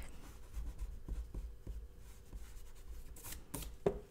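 Faint rubbing of an eraser on drawing paper as pencil lines are taken out, with a few light clicks and taps about three seconds in as tools are put down and picked up.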